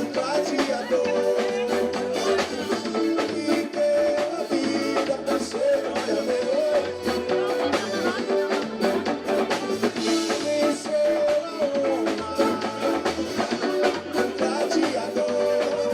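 Axé music from a band: a sung melody over a steady, busy drum and percussion beat.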